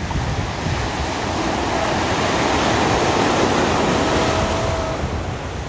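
Small ocean waves breaking and washing up a sandy beach, a steady rushing that swells through the middle and eases off toward the end, with wind rumbling on the microphone underneath.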